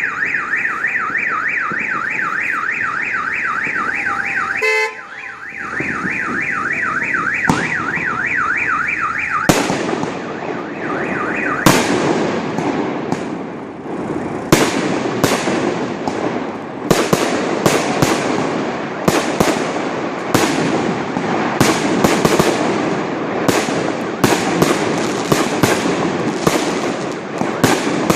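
A car alarm wails with a fast rising-and-falling warble, then stops about eleven seconds in. Fireworks and firecrackers set in about a third of the way through and keep up a dense run of sharp bangs over continuous crackling.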